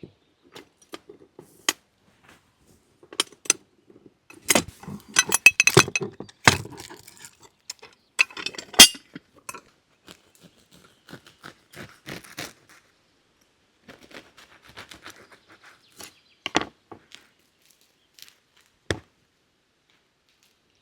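Dishes and cooking utensils being handled: irregular clinks and knocks, busiest about four to seven seconds in, with one sharp knock near nine seconds and scattered lighter clicks after.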